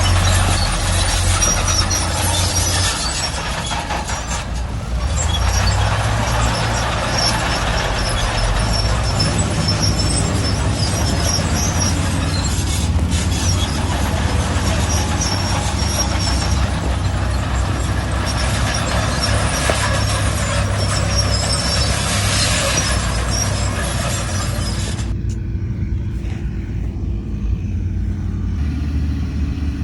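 Heavy diesel earthmoving equipment and dump trucks running with a steady low engine hum. A loud hiss with scattered high squeaks rides over it and cuts off suddenly about 25 seconds in, leaving only the engine hum.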